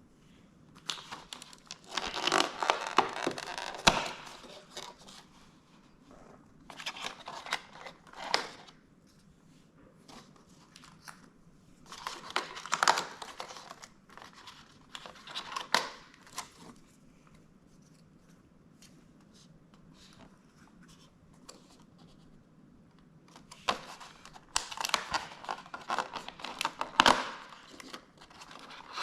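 Cardboard advent calendar packaging and coffee capsules being handled in several spells, separated by pauses. Each spell is a burst of tearing, rustling and crinkling with sharp clicks; the longest and loudest come about two seconds in and again near the end.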